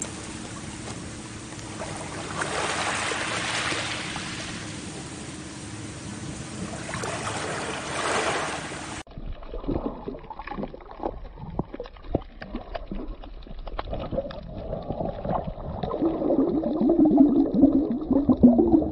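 Small waves washing gently onto a pebbly shore, swelling twice. About nine seconds in it changes abruptly to muffled underwater sound: gurgling, bubbling and scattered knocks, growing louder near the end.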